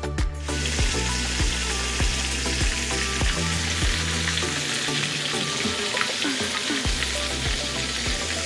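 Chicken pieces frying in hot oil in a skillet: a steady sizzle that starts about half a second in, with background music with a steady beat underneath.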